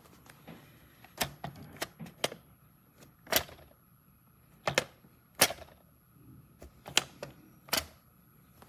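Keys on the Brother P-touch PT-D210 label maker's keyboard being pressed: about a dozen separate sharp clicks at an irregular, typing-like pace.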